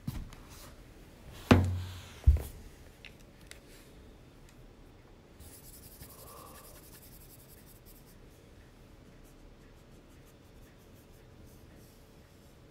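Two sharp thumps close together, about one and a half and two and a half seconds in, then quiet room tone with faint rustling.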